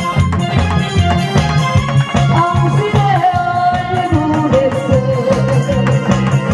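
Upbeat Korean trot music with a fast, steady drum beat under a held, sliding melody line.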